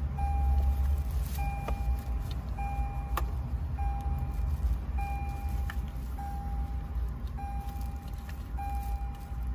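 A car's electronic warning chime beeping over and over, one steady tone of just under a second repeating about every 1.2 seconds, over a low steady rumble. A few sharp clicks come through between the beeps.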